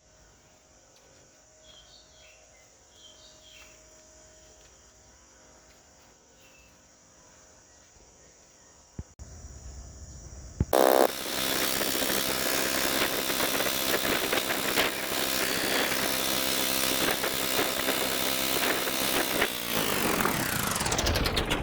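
Quiet background with a few faint high chirps, then about halfway through a small combustion engine starts suddenly and runs loudly, its pitch falling near the end.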